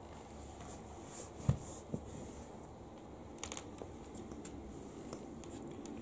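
Faint scattered clicks and taps, with a soft thump about one and a half seconds in and a quick cluster of clicks a little past halfway: two long-haired cats rolling and pawing on a wooden parquet floor while they are rubbed by hand.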